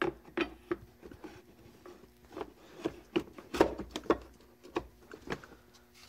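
Plastic housing pieces and the heater core of a disassembled 2002 Pontiac Montana HVAC air box being handled: irregular clicks, knocks and light rubbing.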